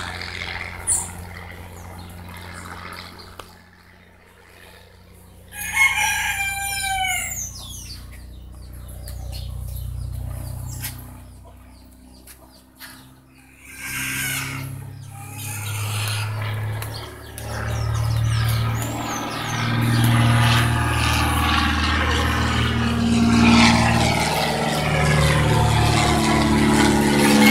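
A rooster crows about six seconds in, a call that arches up and falls away. The piston engine of a small single-engine propeller plane drones overhead, growing louder through the second half.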